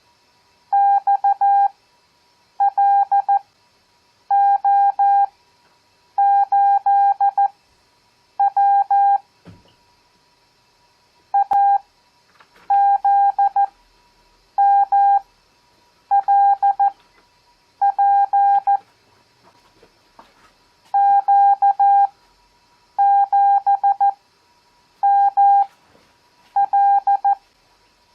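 Morse code (CW) practice tone keyed in dots and dashes, one character at a time. Each character is sent at 14 words per minute with long Farnsworth gaps between characters, for an overall speed of 7 words per minute. The characters are random letters, numbers and punctuation.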